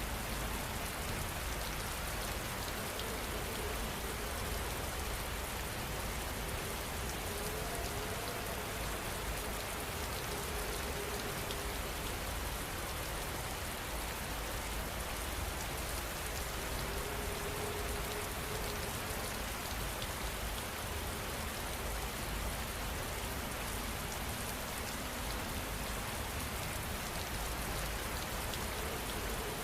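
Rain falling steadily, an even hiss of rainfall that neither builds nor eases.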